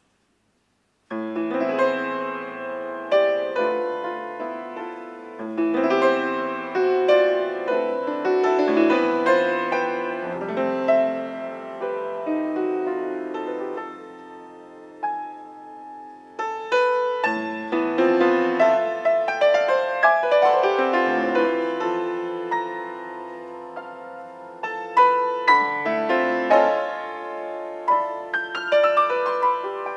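Solo grand piano playing a nocturne, starting about a second in out of near silence. The piece thins to a softer passage about halfway through, then returns with louder, struck chords near the end.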